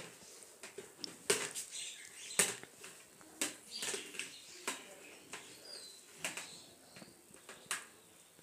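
A utensil stirring cooked instant noodles in a plastic jug, mixing the chili and bumbu seasoning sauce through them: irregular clicks and scrapes, about two a second.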